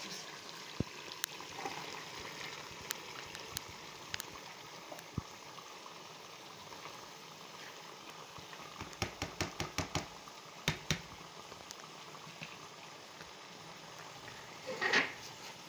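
Chicken-and-pea curry simmering in a metal pot, bubbling steadily. Sharp clicks and knocks come from the spatula and cauliflower florets against the pot, in a quick run of about eight about nine to eleven seconds in, with a louder short scrape near the end.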